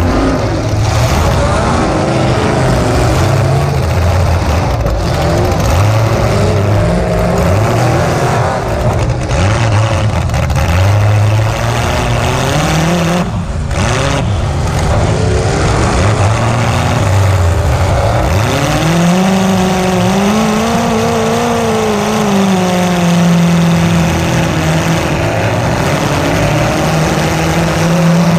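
Demolition derby car's engine heard up close through open exhaust stacks, running loud and rough and revving up and down as the car drives around. About two-thirds of the way through it revs up, eases slightly and holds a high, steady note.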